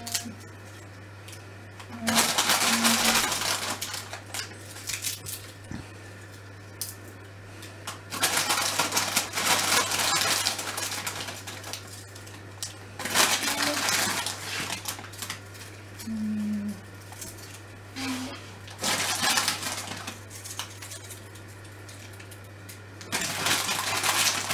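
Crisp packet rustling and salted crisps crunching as they are crumbled by hand over salad plates, in about six bursts of a second or two each, over a steady low hum.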